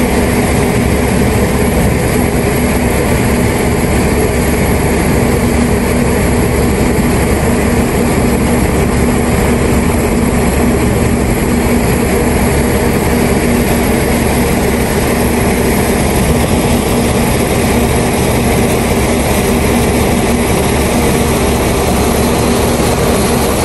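City bus engine idling with a steady low hum, heard from the driver's seat while the bus waits in a queue.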